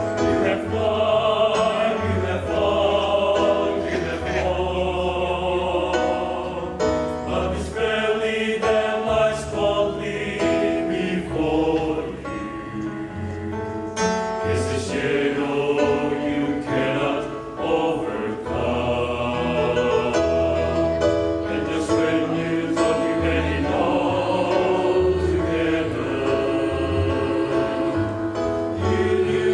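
A mixed choir of men's and women's voices singing together.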